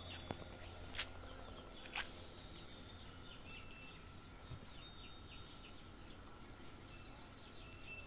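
Faint outdoor ambience with a few sharp clicks in the first two seconds as a horse's harness straps and buckles are handled, and scattered short high-pitched chirps.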